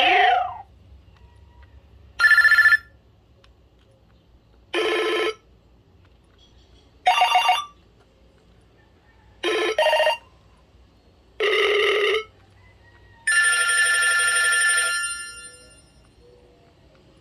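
BlackBerry 8820 alert tones played one after another: seven short electronic chimes about two seconds apart, each with its own pitch and timbre. The first is a quick sweep; the last is longer and rings out over about two seconds.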